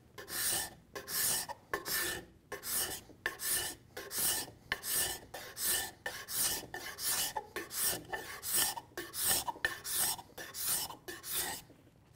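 Steel card scraper scraping across a curved laminated wooden rocker in quick repeated strokes, about one and a half a second, each a short rasp, cutting fine shavings as it levels out bandsaw blade marks.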